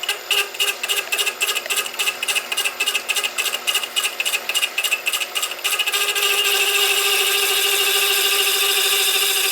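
Tool-post slitting saw spinning at about 1,000 RPM and cutting a groove into a metal shaft turning in the lathe. It starts as a rapid, even pulsing of several pulses a second, and about six seconds in it becomes a steady whine with several tones.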